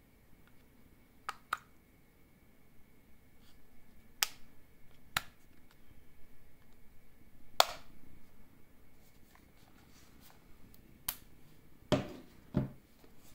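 Scattered sharp clicks and taps of small hard plastic items being handled, about eight in all, the loudest near the middle and two duller knocks near the end, with a faint steady hum underneath.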